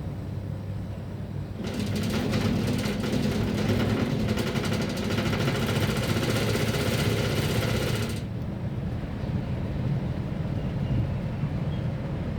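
Split air conditioner running with a steady low hum. About two seconds in, a loud rattling buzz joins it for roughly six seconds and then stops, leaving the hum: the abnormal vibration noise of the unit.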